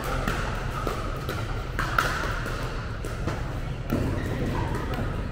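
Sharp pops of a plastic pickleball struck by paddles and bouncing on the court during a rally, echoing in a large indoor hall. The loudest hit comes about two seconds in.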